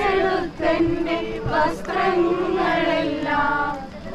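Several voices singing together in a slow, chant-like devotional hymn, with long held notes.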